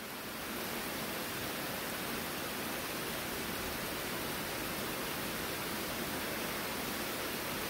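Steady heavy rain, an even hiss that grows a little about half a second in and then holds.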